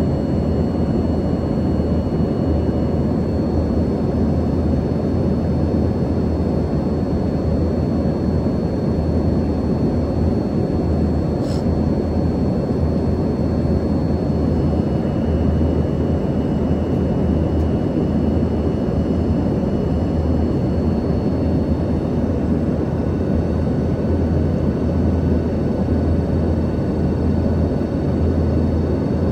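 Steady jet cabin noise inside an Embraer ERJ-145: the hum of the rear-mounted Rolls-Royce AE 3007 turbofans blended with a rush of air, with faint steady high whines over it. A single brief tick sounds about a third of the way in.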